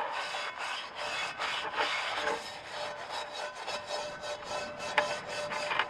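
Steel wool scrubbing the inside of a Wagner No. 8 cast iron skillet in a quick run of scraping strokes. It is taking off baked-on crud loosened by a lye bath.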